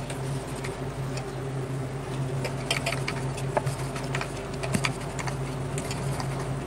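Wooden rolling pin rolling flour dough flat on a wooden chopping board, giving scattered light taps and clicks, over a steady low hum.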